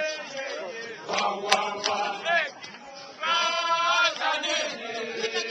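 A group of mostly male voices singing and chanting together, with a strong held phrase a little past the middle. A single sharp click sounds about one and a half seconds in.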